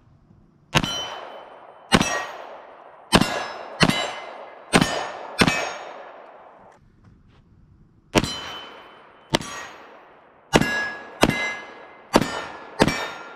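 Kimber K6s revolver firing a mixed load of .38 Special and .357 Magnum: twelve sharp shots in two strings of six, roughly a second apart, with a pause of about two seconds between the strings. Each shot rings out briefly after the report.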